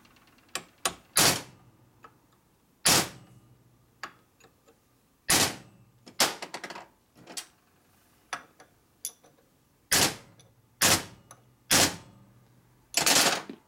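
Hammer blows on metal, bending a tab down on a Harley-Davidson 4-speed transmission's gear shaft: about eight sharp strikes at uneven intervals, with lighter taps between them.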